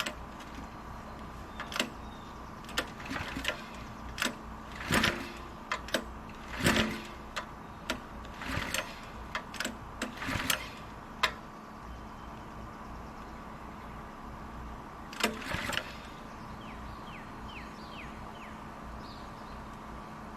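A string of sharp clicks, knocks and clatter from hands handling tools and parts at the small engine, busiest in the first half, with a brief cluster again later; the engine is not running.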